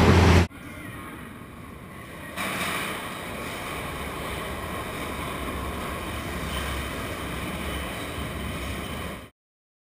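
London Underground train coming into a station platform: a steady, noisy rumble that grows louder about two seconds in as the train arrives and runs alongside the platform, then cuts off abruptly near the end. A brief louder outdoor sound ends half a second in.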